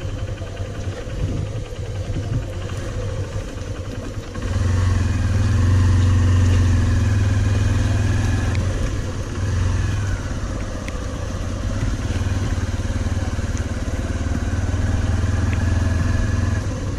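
Motorcycle engine running steadily, growing louder about four and a half seconds in.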